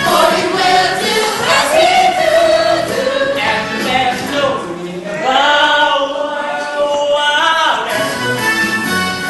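Several cast voices singing together over a band in a live musical-theatre performance, with long held notes that slide up and down.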